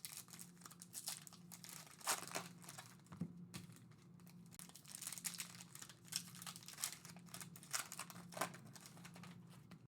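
Foil trading-card pack wrappers crinkling and tearing as packs are opened and the cards handled: faint, irregular crackles over a low steady hum.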